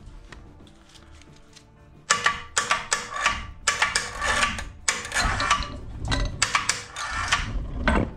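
Angle grinder grinding down a raised edge on a metal frame in a series of short, rasping passes, roughly two a second, starting about two seconds in. Background music runs underneath.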